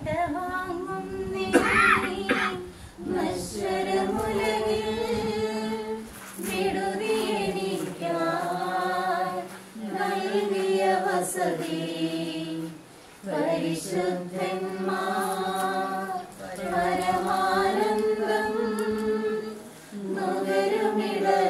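Voices singing a Malayalam Christian funeral hymn, a choir-like group, in drawn-out phrases a couple of seconds long with short breaks between them.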